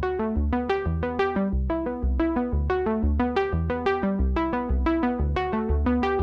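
Background music: an upbeat electronic keyboard tune of short repeated notes over a steady bass beat.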